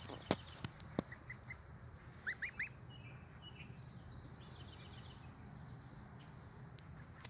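Goslings peeping: a few short soft peeps about a second in, then three quick rising peeps, the loudest sound, at about two and a half seconds, followed by a run of fainter, higher peeps. A few sharp clicks come in the first second.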